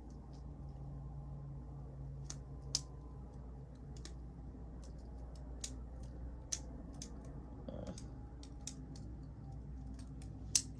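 Scattered light clicks and snaps of a folding pocket knife being handled and its tools flipped open, sharpest about a third of the way in, about halfway and near the end, over a low steady hum.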